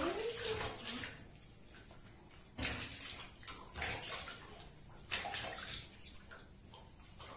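Water splashing and sloshing in a bathtub as a wet cat is washed by hand, in four or so separate splashes about a second apart.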